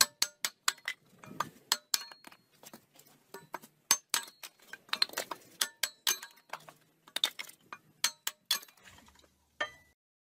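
Quick, irregular knocks and clinks of wood being split on a cast-iron kindling splitter. There are about twenty sharp strikes over nine seconds, many leaving a short metallic ring from the iron frame.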